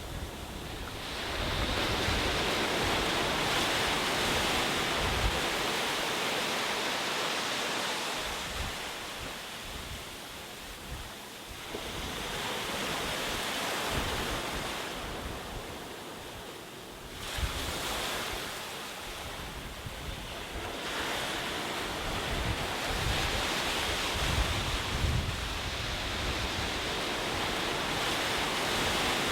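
Ocean waves breaking and washing up the shore, a steady rush that swells and ebbs as each wave surges in and draws back every several seconds.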